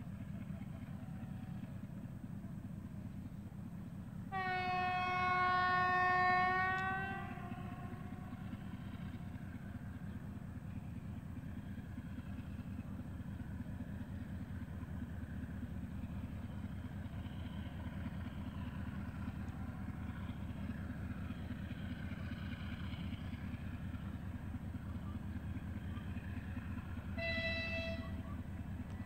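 TE33AC diesel locomotive's horn: a long low blast about four seconds in, then a short, higher-pitched blast near the end, over a steady low rumble as the locomotive approaches.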